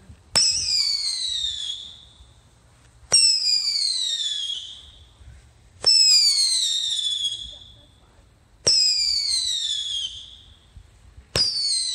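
A repeating firework fires five whistling shots, one every two and a half to three seconds. Each is a sharp crack followed by a shrill whistle that falls in pitch and fades over about a second and a half.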